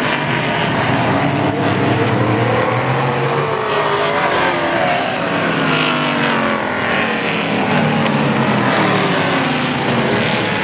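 A field of stock cars racing on an oval track, several engines overlapping and rising and falling in pitch as the cars pass.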